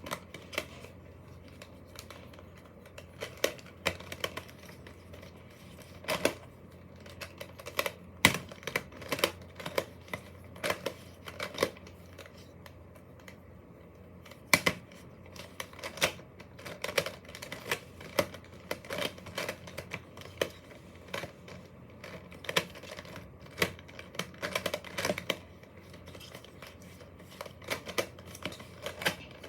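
A 3x3 Rubik's cube being solved by hand: its plastic layers clicking and clacking as they are turned, in irregular runs of quick turns with short pauses between them.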